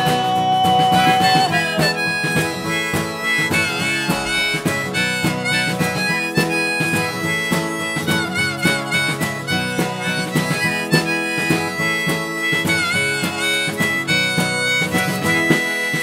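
Instrumental passage of an acoustic folk-country song: a harmonica lead with held, bending notes over strummed acoustic guitar, without singing.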